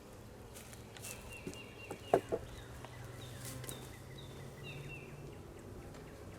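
Honeybees buzzing around an open hive as a low hum that fades after about five seconds, with a small bird chirping in repeated quick runs of high notes. A sharp double knock comes about two seconds in.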